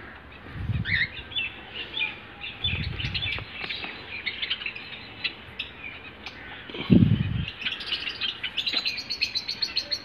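Java sparrows chirping in many short, quick calls, densest near the end. Three low thuds of hands handling the straw nest, about a second in, at three seconds and near seven seconds.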